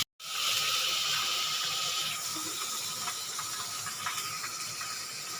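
Ground masala of ginger, garlic, coconut, onion and tomato sizzling in hot oil in a kadhai, the hiss easing off over the first couple of seconds, with a few light clicks.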